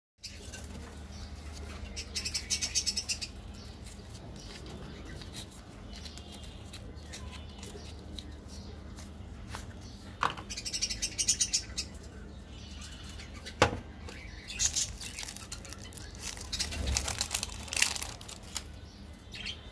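Hands crinkling and tearing plastic-foil candy wrappers in several short bursts, with a few sharp clicks and taps of plastic candy sticks and packets.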